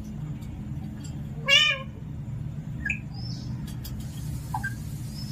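Pet parrot giving one loud, drawn-out call about a second and a half in, then a couple of short chirps, over a steady low hum.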